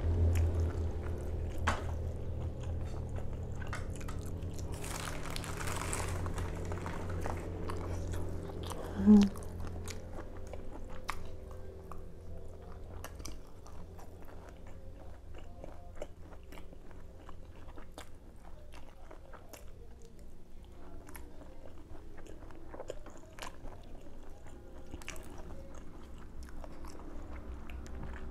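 Close-up chewing and crunching of food, with many small, scattered bite clicks and mouth sounds. A brief, louder low tone about nine seconds in.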